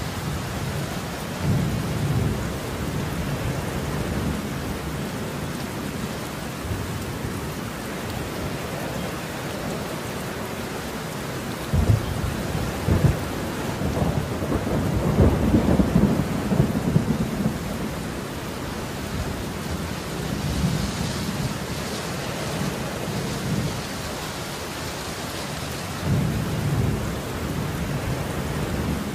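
Steady heavy rain with rolling thunder: a short rumble about two seconds in, a louder rumbling stretch with sharp cracks around the middle, and another rumble near the end.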